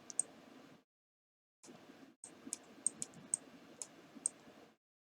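Faint, irregular clicks of computer keyboard keys being typed, about nine keystrokes in all, a couple near the start and the rest spread over the second half. A faint hiss cuts out to dead silence about a second in.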